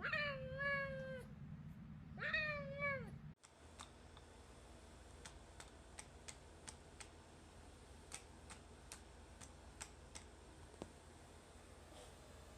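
Domestic cat meowing twice, each meow about a second long and rising then falling in pitch. The sound then cuts off suddenly to a quiet background with faint, irregular clicks.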